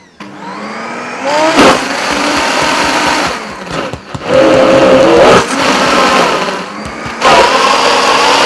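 Optimum G2.1 high-speed blender running its preset sauces program. The motor speed surges and eases in cycles: it dies away briefly at the start, ramps back up with a rising whine, then dips and climbs again twice.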